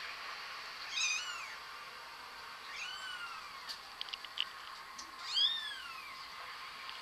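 A domestic cat meowing three times, each call rising and then falling in pitch. The last meow is the loudest, and a few short clicks come between the second and third.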